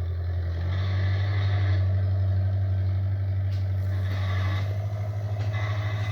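Tractor engine running hard with a steady low hum. It steps up slightly in pitch about a second in and takes on an even pulsing beat near the end.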